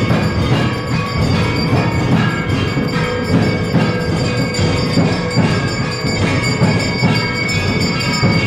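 Temple aarti: bells ringing continuously over steady rhythmic drumming.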